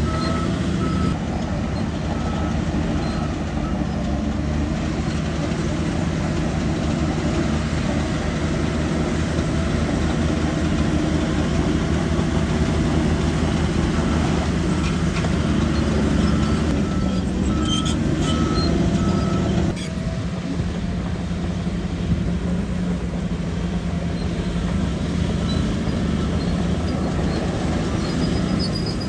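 Shantui DH17 bulldozer's diesel engine running under load, with its reversing alarm beeping in short spells near the start, in the middle and near the end. The engine note drops a little about two-thirds of the way through.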